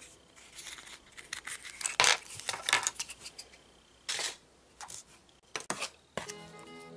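Small plastic parts of a Kinder Surprise toy capsule being handled: scattered clicks and short rustles, loudest about two seconds in. Music comes in near the end.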